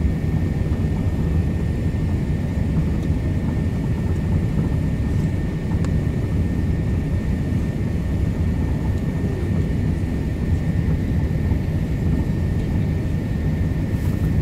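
Steady cabin noise inside an Airbus A380-861 on final approach with flaps extended: a constant low rumble of its four Engine Alliance GP7200 engines and the airflow, with a faint steady high whine over it.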